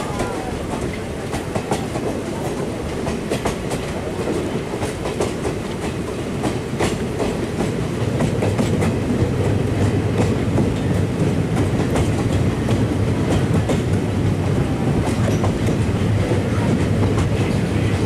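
Passenger train running along the track, heard from a moving coach: a steady rumble with quick wheel clicks over the rails. About eight seconds in the rumble grows louder and deeper as the train rolls onto the steel bridge.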